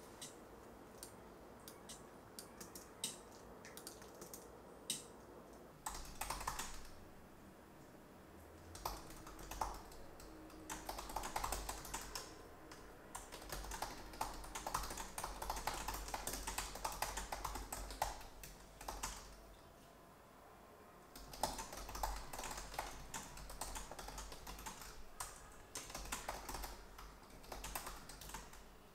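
A few scattered computer mouse clicks, then fast typing on a laptop keyboard in runs of key clicks, pausing briefly twice.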